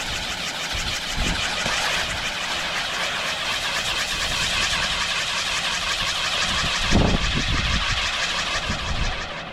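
Firework going off with a continuous fast crackle and hiss, with low booms about a second in and a stronger one about seven seconds in; it cuts off abruptly at the very end.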